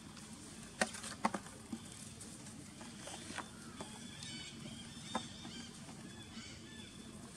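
Young macaques scuffling over dry leaves and grabbing at the fabric of a large umbrella: rustling with a few sharp taps and knocks, the loudest about a second in. A few faint high squeaks come around the middle.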